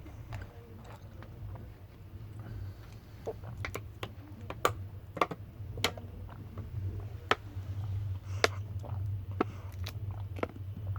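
Steady low hum of the moving train carriage, with about a dozen sharp small clicks and taps at irregular intervals.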